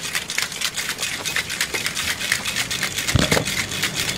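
Rapid, steady rattling made of many sharp clicks, about eight a second.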